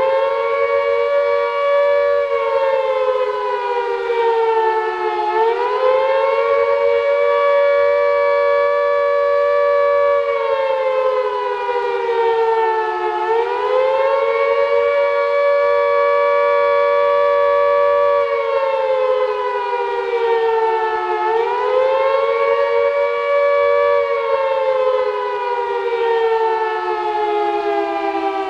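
WWII air raid siren sounding a rising and falling wail, the alert signal: its pitch dips and climbs back about every eight seconds, then falls steadily near the end as it winds down.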